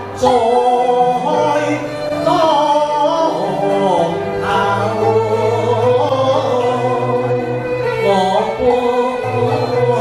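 A man singing a melodic song into a handheld microphone over instrumental accompaniment with a steady bass line, as part of a male-female stage duet.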